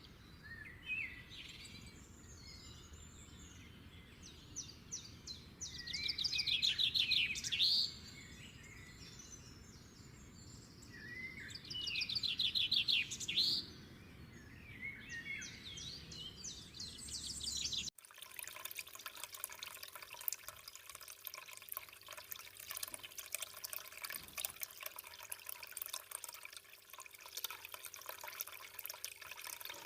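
Songbirds chirping and trilling, with fast trills twice. About two thirds of the way through, an abrupt cut to the steady trickle and splash of running water, likely the finished small homemade fountain.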